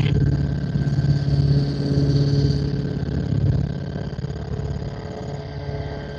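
Helicopter in flight: a steady drone of rotor and engine with a fine, rapid rotor beat, easing somewhat after about three and a half seconds.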